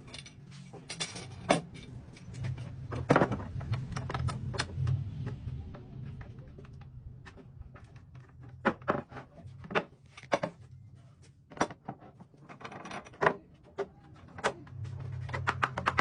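Scattered knocks and clicks of wooden cabinet-door parts and tools being handled during assembly, with a low hum now and then.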